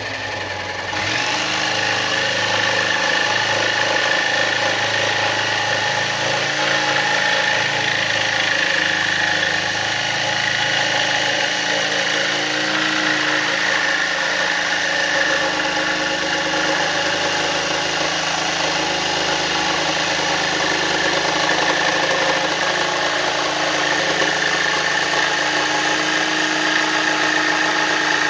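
Power tool running steadily as it cuts through a push bar: a continuous, unbroken drone with a high whine.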